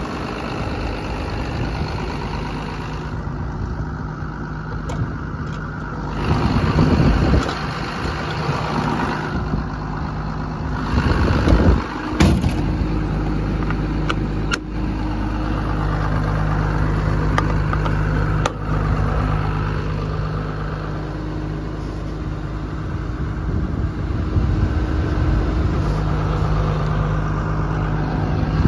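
Turbocharged diesel engine of a Doosan 255LC-V track excavator idling steadily at a constant pitch, heard up close with the engine compartment open. Two brief louder rushes of noise break in, about 6 seconds in and again about 11 seconds in.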